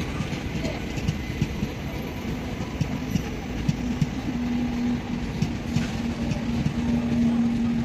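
Indian Railways passenger coaches passing slowly, their wheels clacking over the rail joints in a steady run of knocks over a rolling rumble. A steady hum comes in about three seconds in and grows a little louder.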